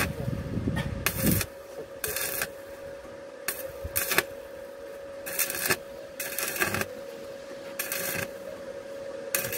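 Electric arc welding on a truck's steel exhaust pipe: the arc crackles and sizzles in short bursts of under half a second, about one every second, with a steady hum underneath.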